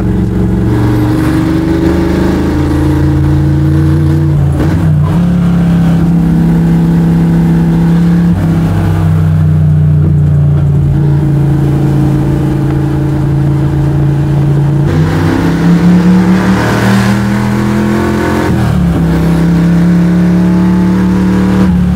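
Small-block Chevy V8 of a Square Body C10 drift truck running under way on the street, a steady loud drone whose pitch shifts up and down in steps several times, with a brief rev rising about two-thirds of the way through.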